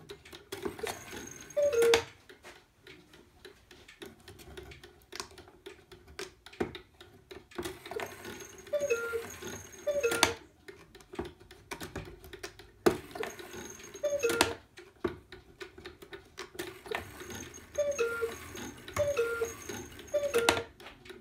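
Antique 1850s cuckoo clock calling: its bellows sound the falling two-note cuckoo again and again in groups of one to three, with sharp clacks of the door and bird mechanism and the movement ticking between calls. The bird now works, its lifting wire adjusted so the door opens fully.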